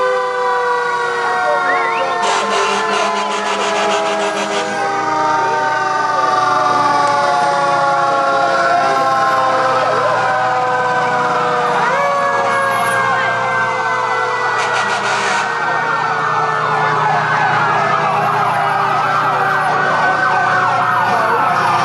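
Several fire truck sirens sounding at once over a truck engine. The siren tones fall slowly in pitch through the first half and jump back up about halfway through, then sirens wail up and down through the second half.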